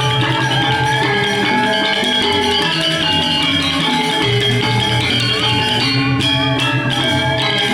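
Balinese gamelan music for the dance: metallophones ring in quick, busy note patterns over a pulsing low tone.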